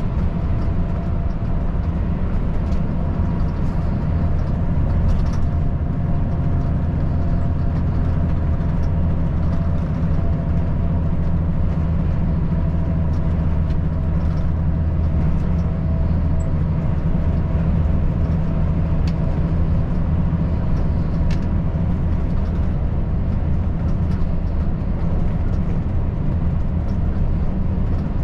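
Volvo FH540 truck cruising on the highway: a steady low drone from its 13-litre six-cylinder diesel, mixed with tyre and road noise, holding an even speed.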